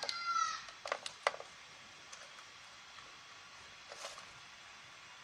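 A short high-pitched tone lasting about half a second, then two sharp clicks about a second in, as a USB endoscope camera is plugged into a laptop. A faint click follows near the end.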